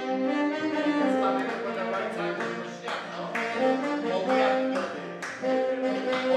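Instrumental music with brass horns playing a melody of held notes, with a few sharp percussive hits.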